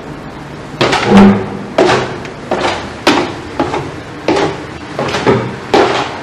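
Footsteps walking at a steady pace on the ship's deck, a series of sharp knocks about one or two a second beginning about a second in.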